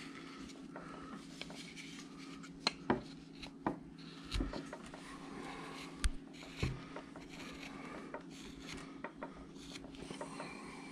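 Hand-pushed V tool cutting into a wood carving, scraping softly as it slices small chips, with a few sharper clicks and knocks about three to seven seconds in.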